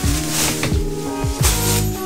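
Background music with a steady beat: sustained pitched notes over regular drum hits.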